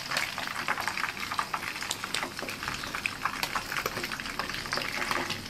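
Small pieces of Indian mackerel (ikan kembung) frying in hot oil in a pan: steady sizzling with constant fine crackles and pops of the oil.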